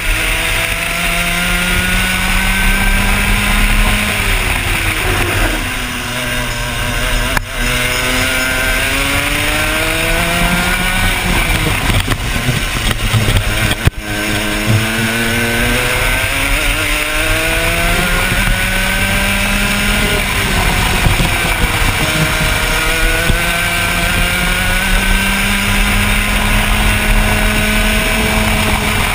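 125cc single-cylinder two-stroke kart engine heard onboard at racing speed. The revs climb along each straight and drop away sharply into the corners, about three times.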